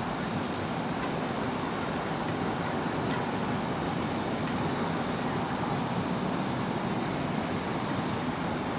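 Small GE 25-ton diesel switcher locomotive running as it creeps forward over the yard tracks: a steady, even noise with no distinct beats or changes.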